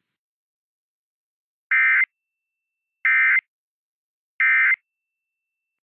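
Emergency Alert System end-of-message (EOM) signal: three short, identical bursts of SAME digital data tones about a second and a half apart, marking the end of the test alert.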